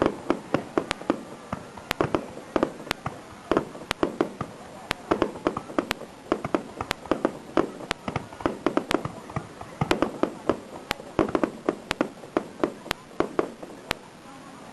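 Aerial fireworks going off: a rapid, irregular string of sharp bangs and pops, several a second, with no pause.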